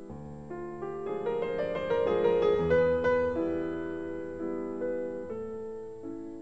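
Piano music: a run of notes building to its loudest about two to three seconds in, then easing off into slower held notes.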